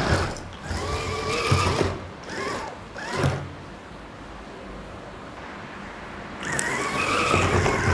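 Small electric gear motors of a tracked RC car whining in spurts, the pitch rising and falling as it is driven, with a quieter stretch in the middle.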